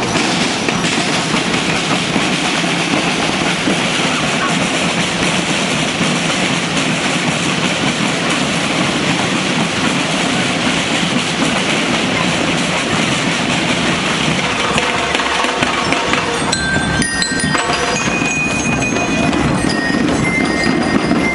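Massed drums of a school marching band playing continuously, a dense, steady rattle of snares and bass drums. Near the end a few short, high ringing notes sound over the drumming.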